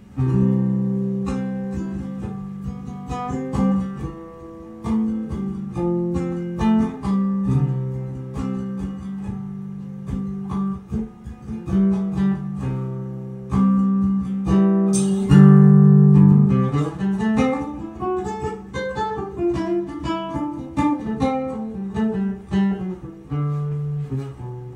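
Caramel guitalele played through an amplifier: strummed chords and picked notes, with a run of notes climbing and then falling a little past halfway.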